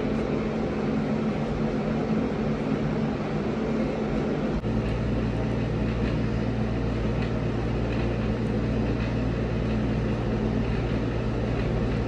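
Window air conditioner running: a steady rush of air over a low mechanical hum, the hum growing stronger about four and a half seconds in.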